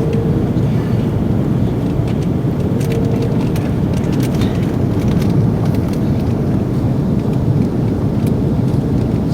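Steady roar of an Airbus A330-300's engines and airflow heard inside the passenger cabin on final approach, with a faint hum that comes and goes and a few light clicks.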